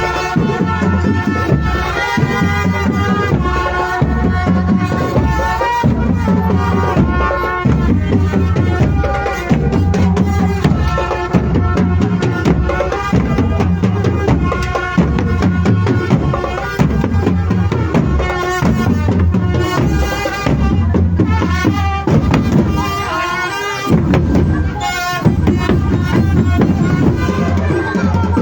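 Drumband playing: a steady drum beat with a melody carried over it.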